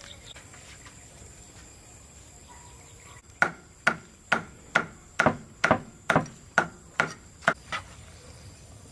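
Knife chopping food on a cutting board: about ten sharp chops at roughly two a second, starting a few seconds in after a pause. Insects chirp steadily behind.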